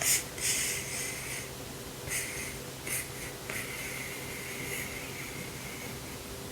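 Paper and plastic packaging rustling and crinkling as it is handled: a sharp crackle at the start, a few short bursts, then a longer stretch of rustling in the middle.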